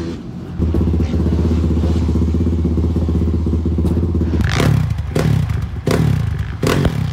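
Dirt bike engine idling steadily, then revved in four quick blips over the last few seconds.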